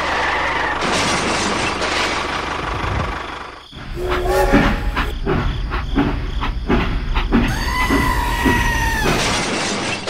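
Steam-train sounds from a toy locomotive: a steady hiss for the first few seconds, then rhythmic chuffing at about two strokes a second, with a held two-note whistle near the end.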